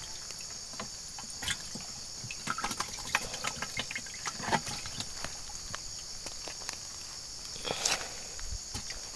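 Steady high-pitched chorus of insects, with scattered light taps and rustles as a small fish is handled and picked up off the dirt, and a louder rustle near the end.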